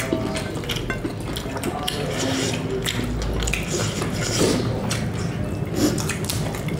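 Close, wet eating sounds: chewing and mouth smacking, with fingers working rice and food on plates, as many short sharp clicks.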